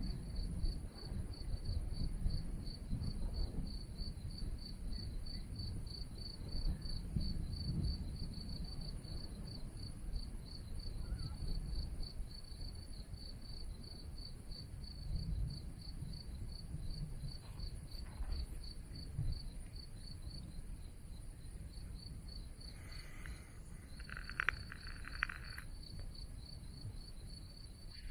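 Cricket chirping in a steady, even pulse, pausing for a couple of seconds near the end, over a low, uneven rumble.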